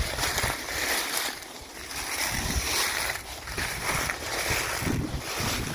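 Footsteps crunching through dry fallen leaves at a steady walking pace, with wind rumbling on the microphone.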